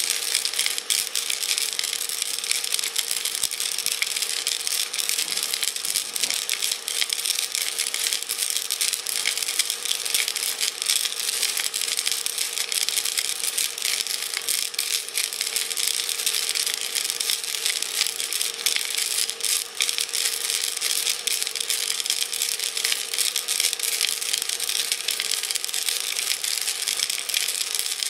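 Steel bolts and rock tumbling and rattling continuously inside a glass jar, which a Ryobi cordless drill turns as a homemade jewellery tumbler. A steady hum from the drill runs under the rattle.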